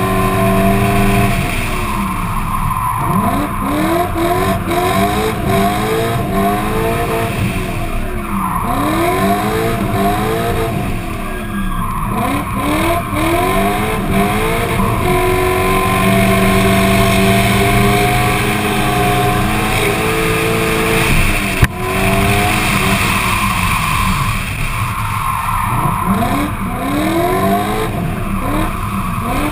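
Drift car's engine, heard from a camera on the bonnet, revving hard and dropping back again and again as the car slides through the corners, with tyres squealing and skidding. A single sharp knock comes about two-thirds of the way through.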